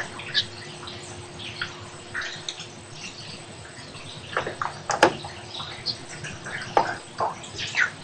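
Water dripping and splashing in a stone tunnel: irregular short plinks, some in quick clusters.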